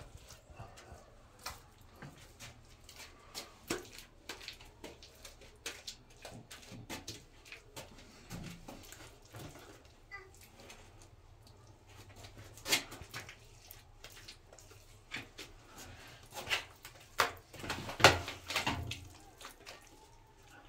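Irregular clicks, knocks and rubbing from hand work on a plastered wall: a plastic wall socket being pressed into place and wiped with a cloth while wet plaster is smoothed on by hand. There is a sharper cluster of knocks near the end.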